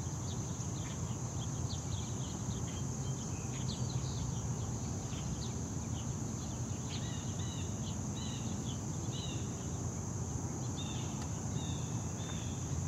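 Outdoor ambience of insects trilling in a steady, high, even drone, with short quick series of bird chirps partway through and again later, over a low rumble.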